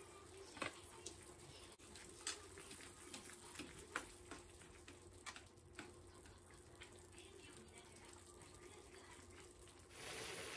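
Faint sound of hachiku bamboo shoot strips and fried fish cake being stirred in shallow broth in a frying pan: scattered light clicks of a ladle and chopsticks against the pan, with small sloshes of liquid. Near the end a steady bubbling hiss comes in as the broth boils on high heat to cook off the liquid.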